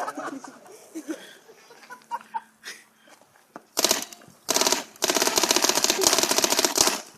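Paintball sentry gun firing full-auto: a few faint clicks, then a short burst of rapid shots about four seconds in, followed by a longer burst of evenly spaced rapid shots lasting about two and a half seconds.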